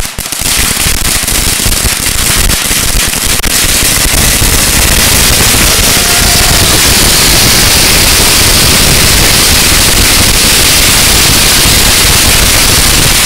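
A 16,000-count roll of Black Cat firecrackers going off in one dense, unbroken crackling barrage, growing to its loudest about four seconds in and holding there.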